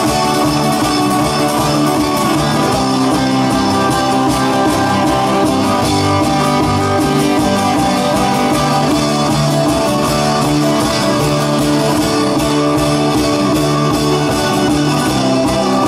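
Live band playing: strummed acoustic guitars over electric bass and a drum kit, at a steady beat.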